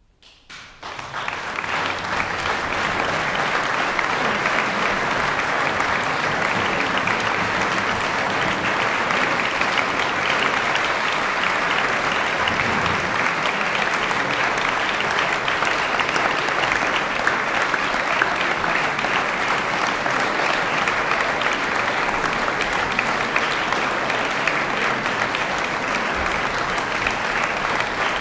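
Audience applauding: clapping breaks out right after a silence and builds within about two seconds into steady, dense applause.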